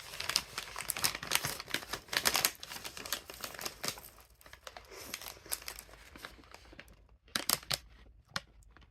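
Paper or plastic wrapper crinkling and rustling as it is handled around a melon bread, densely for the first half, then in sparser crackles with a few sharper clicks near the end.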